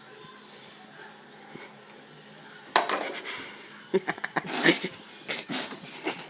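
A person sputtering and spitting out a spoonful of soy sauce, with clinks of a spoon and dishes. It starts with a sudden loud burst about halfway through, followed by several sharp clinks and more sputtering.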